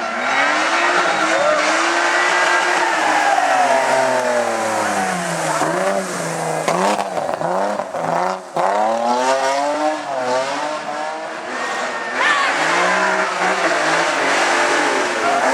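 Rally car engine revving hard, its pitch repeatedly climbing and then dropping sharply through gear changes and lifts off the throttle, with tyre noise underneath.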